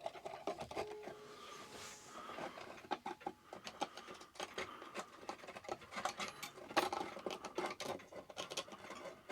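Irregular small clicks, taps and scrapes of a tool and screw being worked against a Herschede clock movement and its case, feeling for a mounting screw hole.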